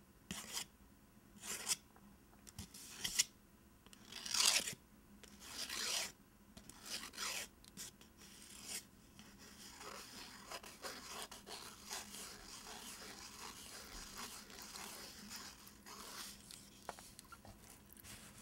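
Fingernails scratching and tracing the printed paper wrapper of a bar of soap, close to the microphone. Separate scratchy strokes at first, then quicker, continuous scratching from about halfway.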